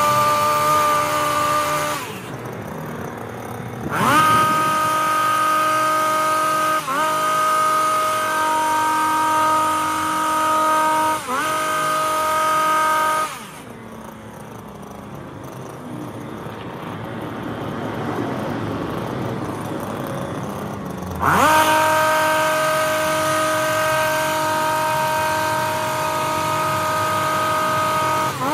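Stihl HS 82T petrol hedge trimmer's two-stroke engine running at full throttle while cutting, sped up to double speed. It drops to idle for a couple of seconds about two seconds in, dips briefly twice, falls to a quieter idle about halfway for some eight seconds, then revs back up to full speed.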